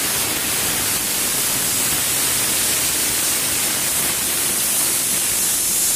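Aluminium pressure cooker on the stove, steam escaping from its weight valve in a steady, high-pitched hiss: the cooker is up to pressure.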